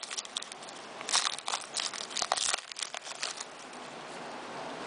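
Foil trading-card pack wrapper crinkling and tearing in the hands as the pack is ripped open and the cards pulled out, in a run of crackly bursts over a couple of seconds.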